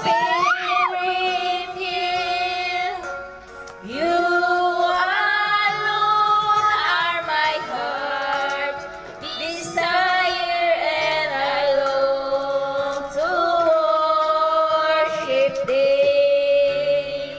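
A woman singing a slow song into a handheld microphone over a karaoke backing track, holding long notes with vibrato, with a short break about four seconds in.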